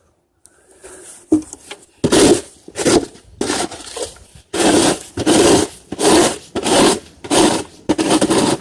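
A shovel scraping at ice on a slippery surface: about ten hard scraping strokes in quick succession, starting about two seconds in.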